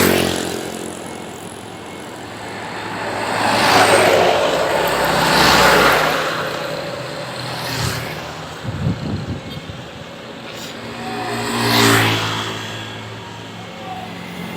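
Road traffic passing one vehicle after another, each swelling and fading: about four pass-bys, some with the low note of a big engine.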